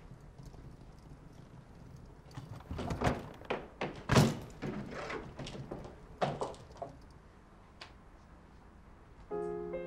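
A string of separate knocks and thuds, the loudest about four seconds in, typical of door or household handling sounds. Piano music starts near the end.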